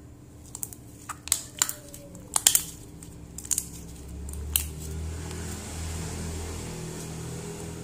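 Fluffy lotion slime, made from white glue and hand-body lotion, squeezed and kneaded in the hand, giving a run of sharp pops and clicks through the first half. A steady low hum comes in about four seconds in.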